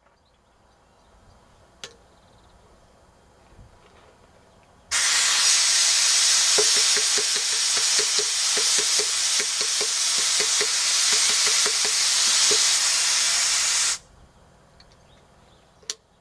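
Pneumatic stone-carving air hammer letting compressed air through with a loud hiss for about nine seconds, starting and stopping abruptly. Only faint, irregular knocks come through instead of a steady hammering: the hammer is stuck and refuses to work.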